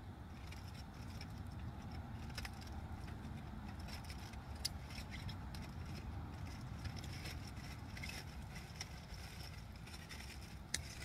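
Small wood campfire of glowing coals crackling, with a few sharp pops, over a steady low rumble.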